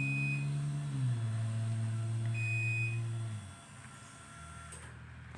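LiftMaster 87504 wall-mount garage door opener on battery backup, its motor humming steadily as it closes the door and stopping about three and a half seconds in. Two short high beeps sound over it, one at the start and one about two and a half seconds in, as the opener warns while running on battery.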